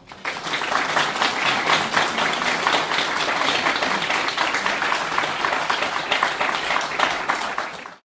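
Audience applauding steadily, many hands clapping together, until it cuts off suddenly near the end.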